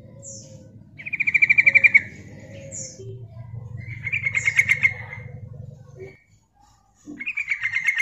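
Yellow-vented bulbul (trucukan) calling: three bursts of rapid bubbling notes, each about a second long, about a second in, about four seconds in and near the end, with short high squeaky notes between. It is a female's call, used as a lure to draw males. A low background hum runs underneath and stops about six seconds in.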